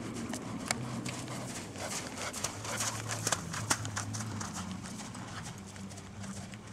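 Horse trotting on sand arena footing: hoofbeats, heard as a scatter of sharp clicks and soft thuds.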